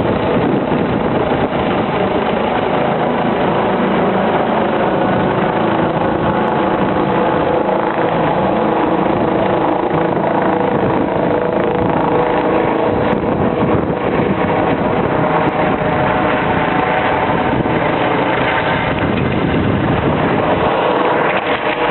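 Air ambulance helicopter running steadily: loud, even engine and rotor noise with a steady whine.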